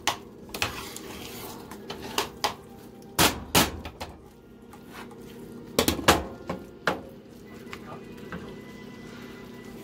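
Wooden spatula knocking and scraping against a skillet while breaking up raw ground beef, in irregular clusters of sharp knocks, over a steady low hum.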